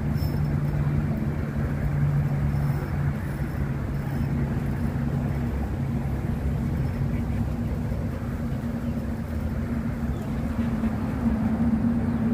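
Steady low mechanical hum and rumble, like a running engine, with one hum fading about halfway through and a higher hum growing louder near the end.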